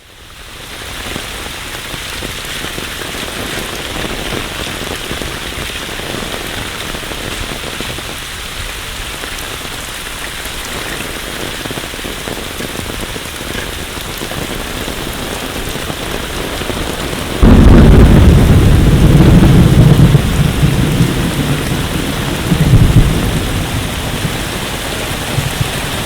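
Heavy rain falling steadily as an even hiss. About two-thirds of the way through a loud low rumble sets in suddenly and carries on to the end, swelling again briefly near the end.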